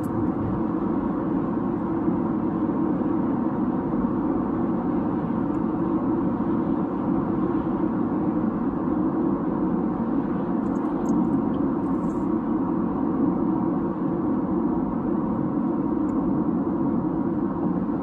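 Steady road and engine noise inside a car's cabin at highway speed: a constant low drone with faint steady hums above it.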